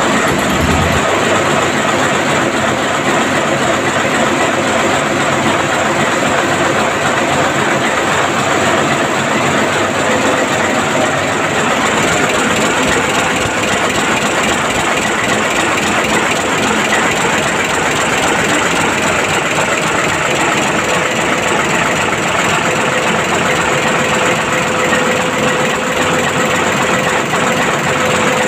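Large multi-cylinder marine diesel engine running steadily in a ship's engine room, loud and even throughout.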